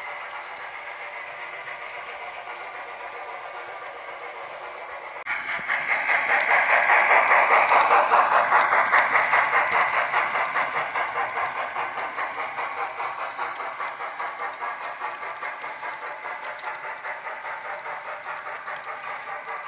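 HO scale model of steam locomotive CN 6060 running with an ESU DCC sound decoder playing steam sounds through its small on-board speaker. About five seconds in a hiss swells up suddenly and then fades slowly, with rhythmic chuffs at about two a second.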